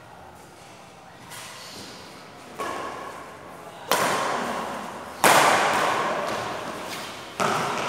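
Badminton rackets striking a shuttlecock in a fast doubles rally: five sharp hits a second or two apart, the two in the middle the loudest, each ringing on in the echo of a large hall.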